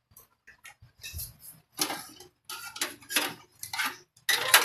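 Irregular metallic clinks and rattles of parts being handled in a steel computer case, as a power supply is fitted, coming thicker and louder from about two seconds in.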